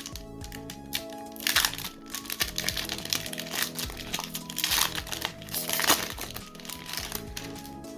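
Crinkling and crackling of a foil Pokémon booster-pack wrapper being handled, in several bursts, over steady background music.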